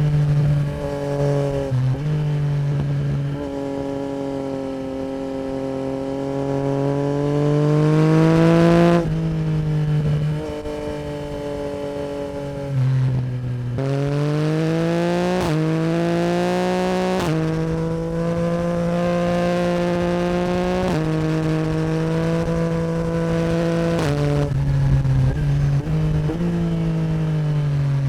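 2024 Yamaha MT-09 SP's CP3 three-cylinder crossplane engine through an Akrapovic Racing Line exhaust, ridden hard. The pitch climbs as it revs up and drops in sudden steps at each gear change, over several accelerations and slow-downs.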